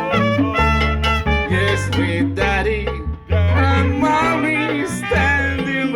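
Song with a strong bass line and sung melody, with a Latin, salsa-like feel; it drops out briefly about three seconds in.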